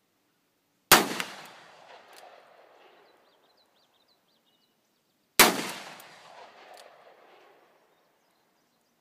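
Two shots from a Smith & Wesson 386 XL Hunter .357 Magnum revolver with a 6-inch barrel and scandium frame, about four and a half seconds apart. Each sharp report is followed by an echo that rolls away over about two seconds.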